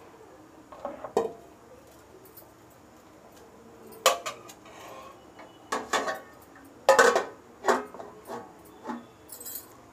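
Steel spoon knocking twice on the rim of an aluminium cooking pot, then a steel plate set on the pot as a lid, clanking several times as it is settled in place.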